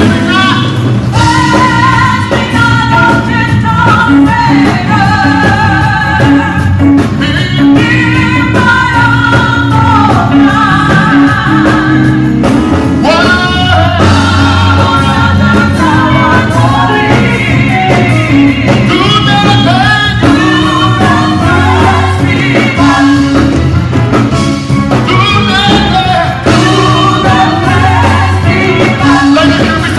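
Live gospel praise-and-worship music: several singers on microphones singing together over electric guitar and a steady bass line.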